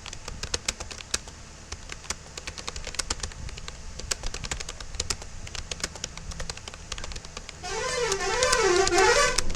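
Fast touch-typing on a Rapoo computer keyboard: a steady stream of key clicks. About eight seconds in, a loud tone comes over the typing, its pitch wavering up and down about twice a second, like a horn or siren.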